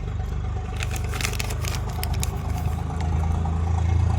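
A small engine running steadily, getting a little louder about three seconds in, while metal parts and tools clatter and scrape for a second or two.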